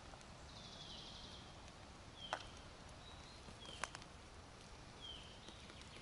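A bird calling: a short high note that drops in pitch, repeated four times about every second and a half, with a few faint clicks.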